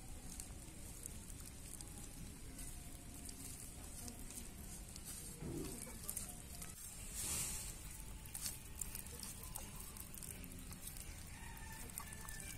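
Hands rubbing spice powders and pastes into a raw whole chicken in a clay bowl: faint wet rubbing and squishing with small clicks, loudest in a brief rustle about seven seconds in.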